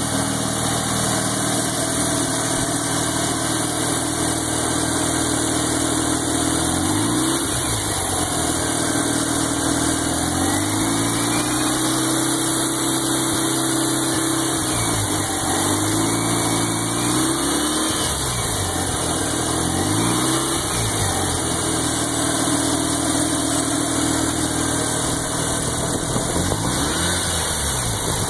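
Mazda RX-7 FD's 13B rotary engine idling, revved up and back down several times from about a quarter of the way in, with the throttle worked by hand at the throttle body linkage.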